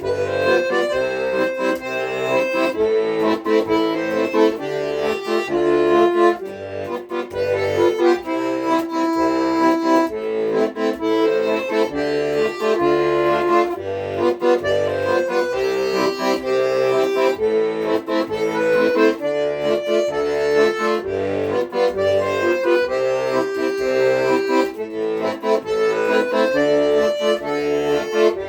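Accordion playing a tune: a melody over a regularly pulsing bass accompaniment.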